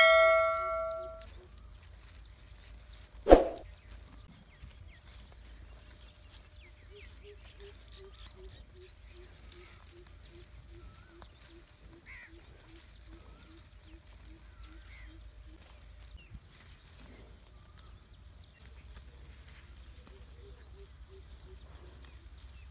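Outdoor field ambience around grazing cattle and water buffalo. It opens with a bell-like ding that rings out over about a second, and a short loud knock comes about three seconds in. Later a soft low call repeats about three times a second for several seconds, twice.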